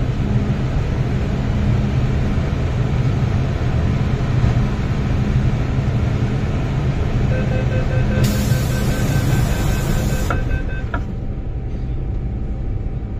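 Hong Kong MTR M-Train car braking to a stop at a station. A steady low motor and wheel rumble carries a pulsing high tone through the last few seconds of braking. Air hisses from about eight seconds in and cuts off after two seconds, then comes a click and a quieter standstill hum.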